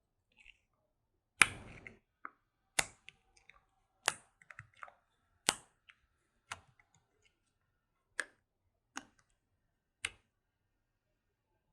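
Slime being handled, giving sharp clicking pops of trapped air, about ten of them spaced roughly a second apart, the first about a second and a half in the loudest.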